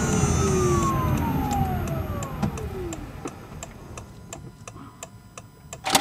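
Honda Step WGN hybrid's e:HEV electric drive motor whining and falling in pitch as the car slows to a stop on electric power alone, the engine off. Steady ticking follows, about three ticks a second, with the turn signal on, and a clunk near the end as the shifter goes into park.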